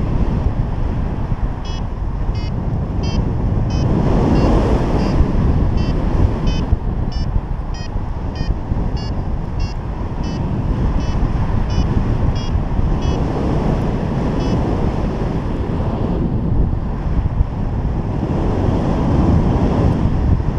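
Airflow buffeting the camera microphone in flight, a loud, steady rush. Over it, from about two seconds in until a little past the middle, come short high beeps about twice a second, the kind of tone a paragliding variometer gives when the wing is climbing in lift.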